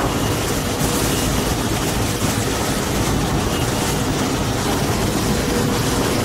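A large engine or heavy machine running steadily, a dense rumble with a faint constant hum above it.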